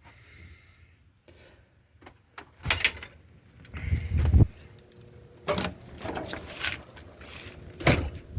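A series of knocks and thumps, a handful of separate hits, the heaviest a deep thud about four seconds in.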